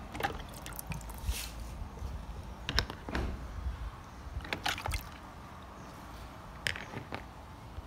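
Small wet plastic toy animals being handled and set down on a tiled floor: scattered light taps and clicks, with water dripping and splashing as they come out of a bucket of water.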